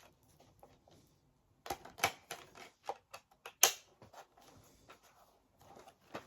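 Handling noise: a quick run of sharp clicks and taps, clustered from about one and a half to four and a half seconds in, with a few more near the end.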